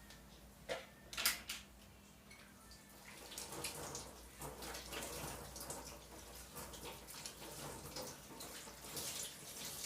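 A couple of sharp knocks, then from about three seconds in a kitchen tap runs into the sink with an uneven splashing hiss.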